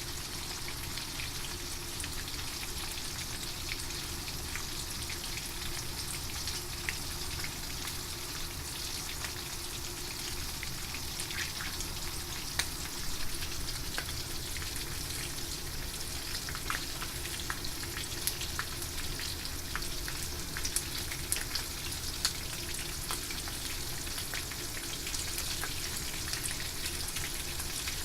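Horse mackerel frying in hot oil: a steady sizzle with scattered sharp pops and crackles.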